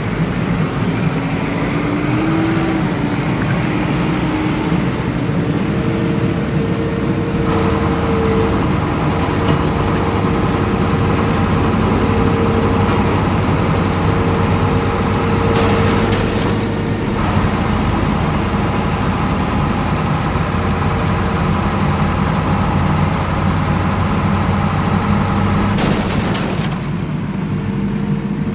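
Vehicle motor sound running steadily with a low hum, changing pitch about seven seconds in, with two short bursts of noise later on.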